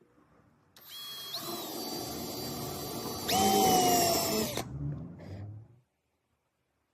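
Power drill running: its whine steps up in pitch shortly after it starts, then a louder, lower whine comes in about halfway through, sags slightly in pitch and cuts off.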